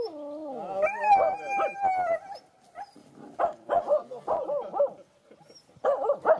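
Finnish Spitz whining and yelping, excited by a Canada goose swimming close by: a falling whine, a long high held whine, then a quick run of short yips and more whines near the end.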